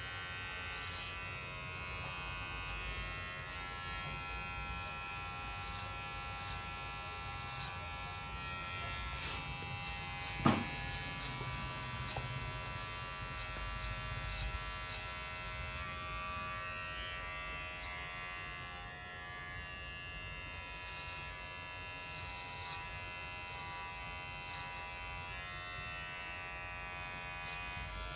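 Cordless electric hair clipper running with a steady buzz as it cuts the short hair at the back of the neck for a fade. There is one sharp click about ten seconds in.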